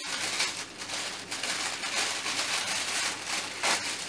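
Tissue paper rustling and crinkling in irregular bursts as a wrapped package is handled and unwrapped.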